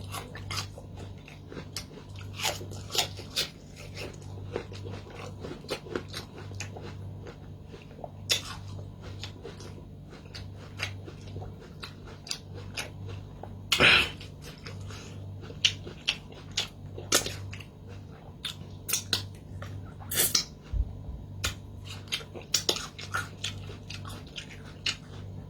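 A person chewing and biting food close to the microphone: irregular sharp clicks and smacks, the loudest about 14 seconds in, over a steady low hum.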